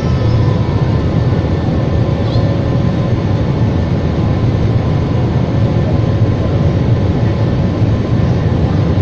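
Steady, even cabin roar of a jet airliner in flight, heard from inside the cabin: low engine and airflow noise with a faint steady hum running through it.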